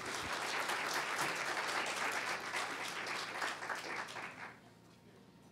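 Small audience applauding, the clapping dying away about four and a half seconds in.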